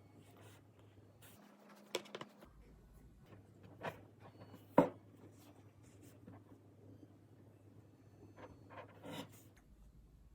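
Hands handling a tablet and its packaging: light rubbing and scratching with a few sharp taps, the loudest about five seconds in.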